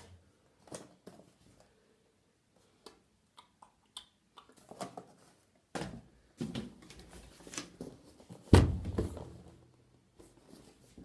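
Handling noises in a small room: scattered light knocks and clicks, a stretch of rustling, then one loud thump about eight and a half seconds in as a cardboard box of washing powder is fetched and lifted.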